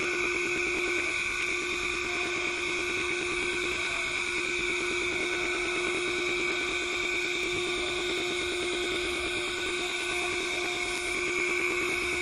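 Window-cleaning robot's vacuum suction motor running with a steady whine and rushing air, the suction that holds the robot against the glass as it drives across the pane.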